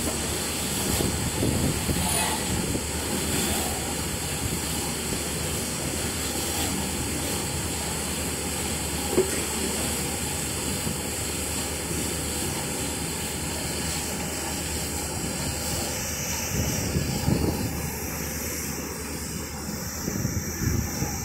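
Automatic coach washing plant at work on passing railway coaches: a steady rush of water spray hissing and rotating brushes scrubbing the coach sides, over the rumble of the train.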